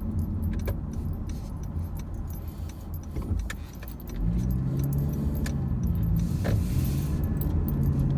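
Road and engine rumble inside a moving car's cabin, with light jangling and clicking rattles; about four seconds in, a steady low hum sets in.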